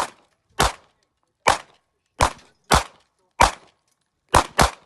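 Pistol shots, about eight in a row at uneven intervals, the last two in quick succession near the end.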